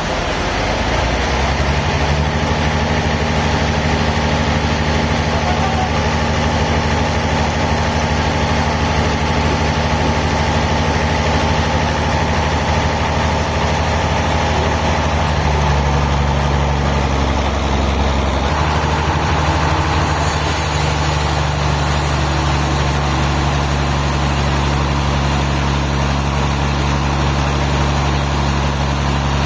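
A heavy engine running steadily at a constant speed, a low hum whose pitch shifts slightly about halfway through.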